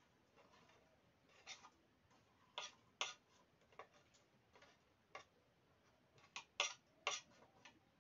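Knife striking a small wooden chopping board while slicing eggs and potatoes: a dozen or so short, sharp taps at an uneven pace.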